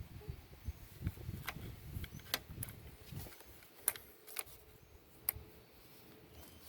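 Faint handling noise with several light, sharp clicks as multimeter test probes are set against the terminals of a car battery.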